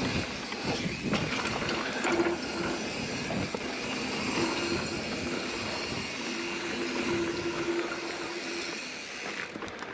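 Mountain bike riding over a dirt trail: tyre rumble and wind on the microphone. In stretches a steady buzz comes in, which is the Hunt wheels' high-engagement (3-degree) rear freehub ratcheting while the rider coasts.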